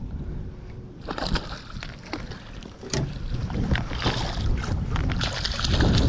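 Water splashing and sloshing at the surface beside a boat as a hooked jewfish thrashes, with scattered knocks and wind on the microphone. It gets louder about halfway through and again near the end.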